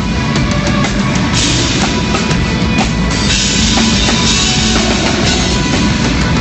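A rock band playing live at a sound check, led by a full drum kit with kick drum. Cymbals wash in about a second and a half in and again from about three seconds in.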